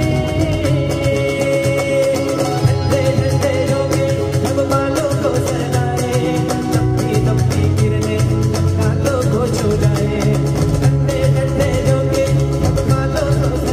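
Live acoustic fusion band playing: acoustic guitar strummed over a steady cajon beat with cymbal, and a Roland Juno keyboard, while a male voice sings the melody.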